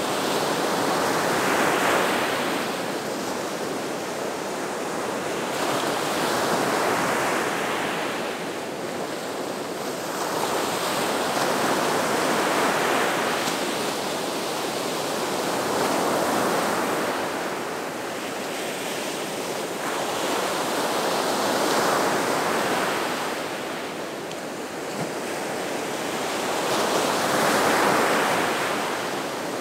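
Gulf of Mexico surf breaking on the shore. The rush of the waves swells and eases about every five to six seconds.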